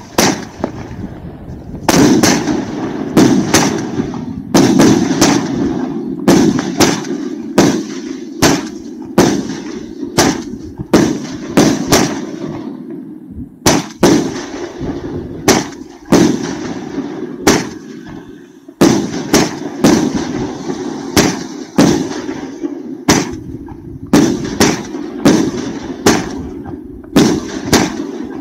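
A 25-shot, 38 mm firework cake (Funke Colosso Triple-Gold) firing: sharp reports of shots launching and bursting in quick succession, about one to two a second, with a continuous hiss between them.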